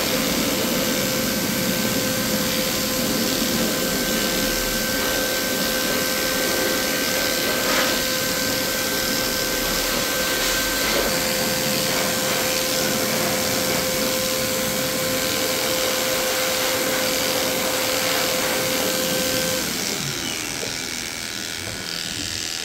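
Cordless electric dog clipper running steadily as it shaves through a matted coat, a constant motor hum over a hissing buzz. Near the end the steady hum stops and the sound drops a little.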